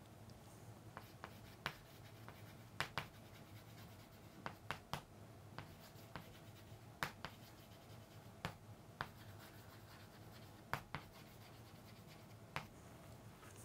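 Chalk on a chalkboard as words are written: faint, irregular short taps and scratches.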